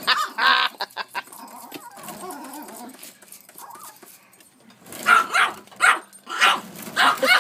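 Yorkshire terrier barking agitatedly: one bark about half a second in, a quieter stretch, then a quick run of four or five sharp barks from about five seconds in.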